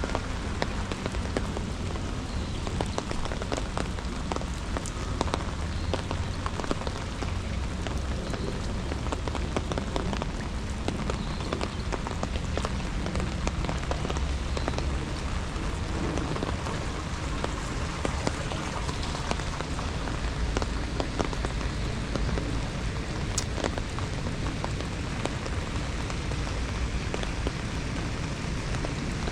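Steady rain falling, with a dense patter of separate drops ticking close by.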